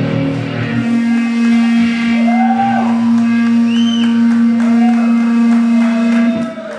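Live metal band ending a song on a long held low note, with higher notes sliding up and down over it. The ringing note is cut off abruptly about six seconds in.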